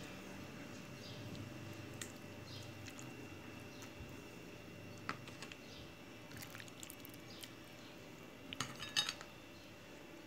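Soft, scattered taps and clicks of diced tomatoes being dropped by hand onto potatoes and eggplant in a baking tray, with a short cluster of sharper clicks near the end, the loudest moment.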